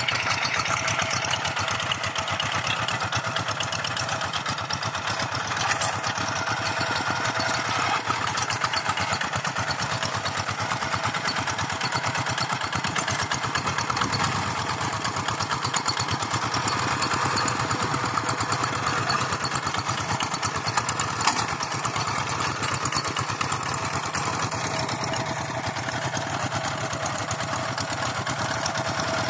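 Engines of two walking (two-wheel hand) tractors, single-cylinder diesels, running steadily as the tractors pull ploughs through dry soil, with a fast even chugging. One brief sharp click a little after the middle.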